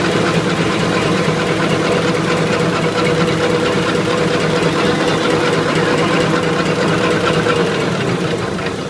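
Paper napkin cutting and folding machine running steadily, with a fast mechanical clatter over a steady hum, growing quieter near the end.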